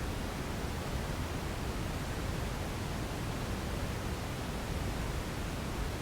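Steady electronic noise made for sleep: a constant, unchanging hiss, with more weight in the lows than the highs.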